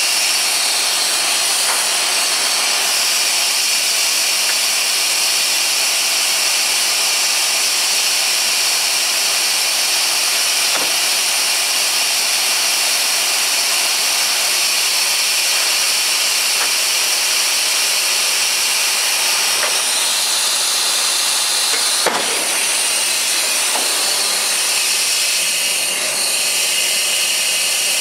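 A loud, steady hiss with no rhythm, from air or machinery at a mill's truck dumper, with a single sharp knock about 22 seconds in.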